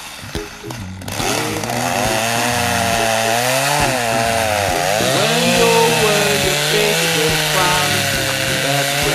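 Two-stroke chainsaw cutting into a thick oak trunk. The engine is quieter for about the first second, then revs up and runs loud, its pitch rising and sagging as the chain bites into the wood.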